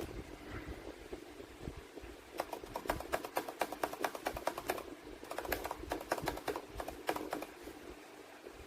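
Typing on a mechanical keyboard fitted with retro Macintosh-style keycaps: rapid runs of key clacks starting about two seconds in, with a brief pause midway, stopping shortly before the end.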